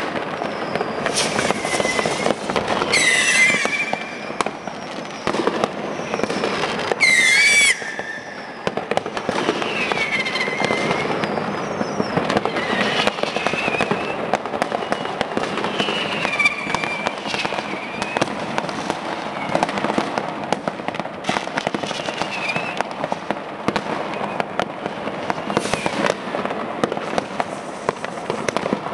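Dense, continuous popping and crackling of many firecrackers and fireworks going off at once, with several whistling fireworks whose pitch falls. The loudest bursts come about 3 and 7 seconds in.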